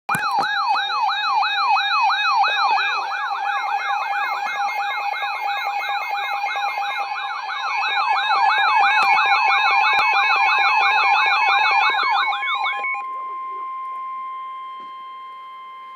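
Emergency alert tones for a severe thunderstorm warning: a siren-like electronic tone sweeps up and down about three or four times a second over a steady tone. About 13 seconds in, the sweeping stops and a single steady warning tone carries on alone.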